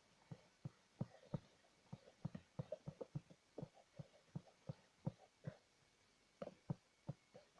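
Slime being squeezed and kneaded by hand, giving a quick, irregular run of small pops and clicks.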